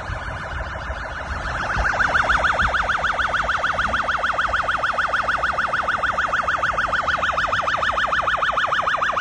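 Electronic siren wailing in a fast up-and-down sweep that repeats several times a second, growing louder about two seconds in, over a low rumble of rushing floodwater.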